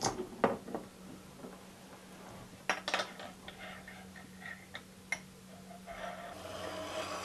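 A few light, sharp clicks of small metal objects touching each other and a wooden tabletop as they are handled, spread out with faint noise between. A soft hiss swells near the end.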